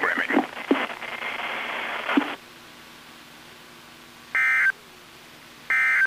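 NOAA Weather Radio broadcast played straight from a Midland weather radio's audio output: the last of the announcement and a stretch of static that cuts off about two seconds in, then, after a low hum, two brief buzzy data bursts about a second and a half apart. These bursts are the SAME digital end-of-message code that closes the Required Weekly Test.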